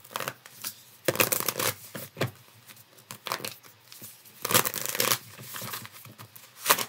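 A deck of oracle cards being shuffled by hand, giving uneven bursts of rustling and flicking, loudest about a second in and again around four and a half seconds in, with a shorter burst near the end.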